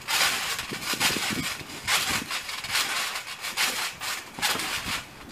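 Trampoline mat covered in Orbeez water beads being bounced on: a rustling, splattering noise with each landing, about once a second.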